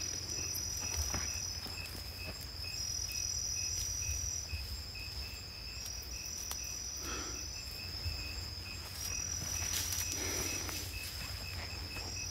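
Insects calling in the woods: a steady high-pitched shrill, with a slightly higher trill that comes and goes every couple of seconds and a fainter, evenly pulsing chirp beneath. Faint rustles come about seven and ten seconds in.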